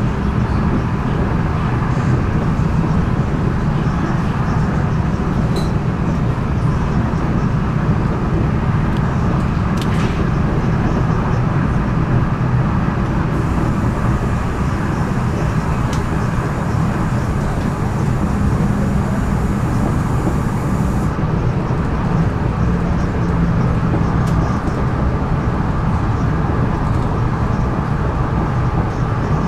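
Interior running noise of a Régiolis B 84500 bi-mode train on the move, working on its diesel engines: a steady low rumble of the engines, wheels and track.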